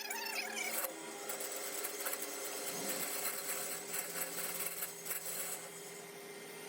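Lathe motor and spindle running with a steady hum and a light rough mechanical noise.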